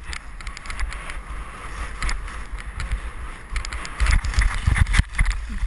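Wind buffeting the microphone of an action camera worn by a rider moving downhill, with the hiss and scrape of snow sliding under the rider; the buffeting and scraping grow loudest and most uneven about four to five seconds in.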